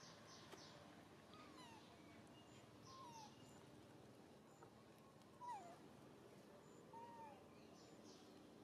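Faint, short falling squeaks from a baby macaque, four of them a second or two apart, the third the loudest.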